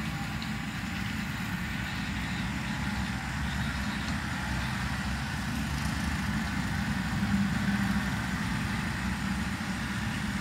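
John Deere 4066R compact tractor's diesel engine running steadily under load while pulling a 6-foot bush hog (rotary cutter) through tall grass.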